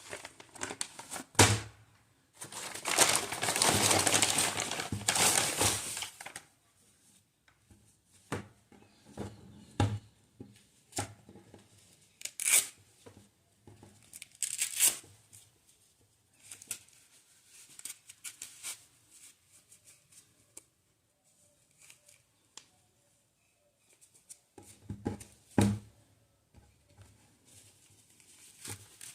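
Packaging being opened and handled by hand. A long tearing sound runs from about three to six seconds in. After it come scattered rustles, crinkles and light taps, with a short busier patch near the end.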